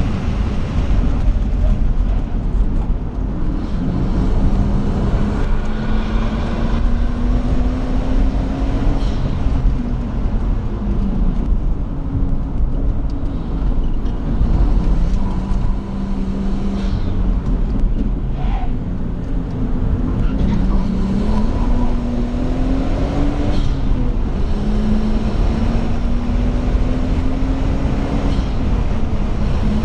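Nissan Skyline R34 GT-T's turbocharged straight-six heard from inside the cabin under hard track driving. The engine note climbs in pitch several times, each climb ending in a sudden drop as at a gear change, over heavy road and wind rumble.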